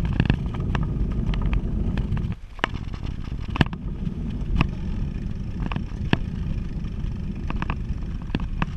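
Wind and road rumble on the microphone of a bicycle-mounted camera while riding, with irregular clicks and rattles from the bike and camera mount over bumps in the road. The wind noise drops away briefly about two and a half seconds in.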